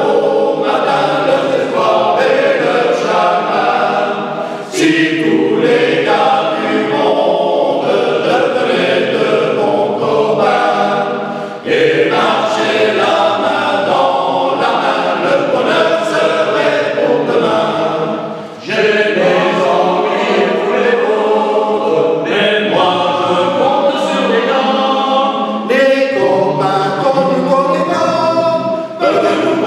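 Unaccompanied men's choir singing, phrase after phrase, with brief breaks between phrases.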